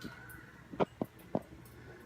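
Three short, sharp clicks or taps, the first about a second in and the rest following within half a second.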